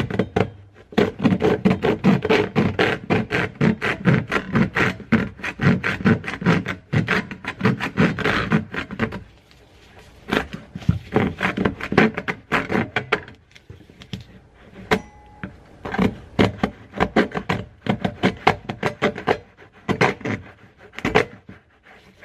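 Japanese pull saw cutting plastic drain pipe, a rapid run of rasping strokes, several a second, for about nine seconds, then shorter bursts of strokes with pauses between them.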